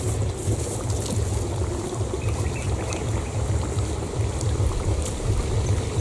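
Low, uneven rumble of wind buffeting the microphone over a light outdoor hiss.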